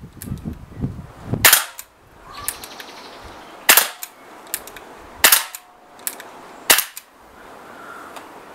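Walther PPQ .177 CO2 air pistol, the non-blowback version, firing four sharp shots one to two seconds apart.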